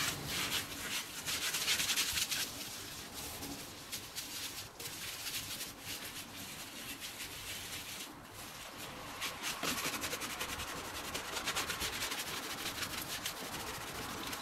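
A sponge scrubbing a wet, foam-covered glass-ceramic cooktop in quick back-and-forth strokes, rubbing loose burnt-on residue that a degreaser spray has lifted. The rubbing eases off for a few seconds in the middle, then picks up again.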